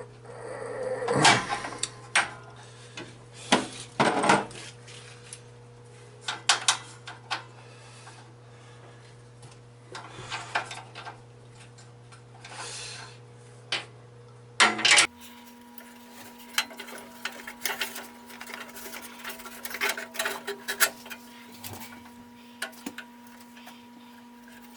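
Hand tools and metal parts being handled, irregular clinks and knocks over a steady low hum. The background changes abruptly about fifteen seconds in.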